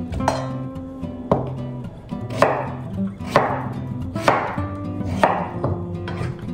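Chef's knife chopping through pumpkin pieces onto a wooden cutting board: six sharp cuts, about one a second.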